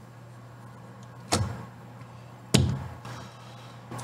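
Two sharp clicks about a second apart as a hex driver works a small screw into a plastic bracket on an RC mini crawler chassis, the tool and parts knocking against each other.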